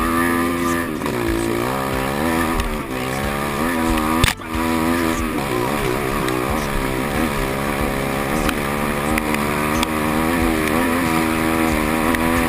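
150 cc pit bike engine revving up and down as the bike is ridden hard along a dirt track, its pitch rising and falling repeatedly with the throttle. A sharp knock sounds about four seconds in.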